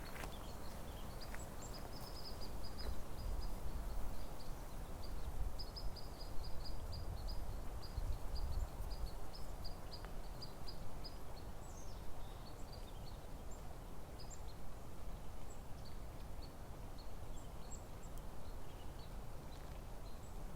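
Outdoor ambience: a steady low rumble of wind, with a small bird chirping repeatedly, short high notes two or three a second, that thin out about two-thirds of the way through.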